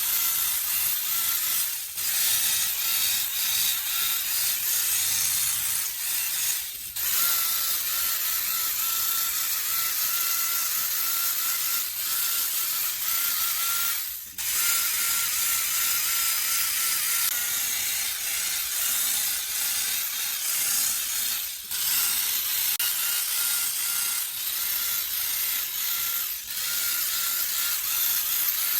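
Power carving tool cutting and grinding into wood, running continuously with brief breaks every few seconds.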